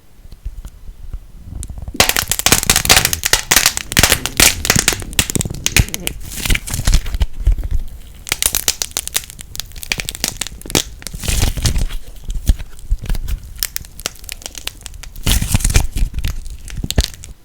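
Light plasticine squeezed and pressed close to the microphone, crackling with a dense run of sharp pops and snaps that starts about two seconds in, eases off in places and stops just before the end.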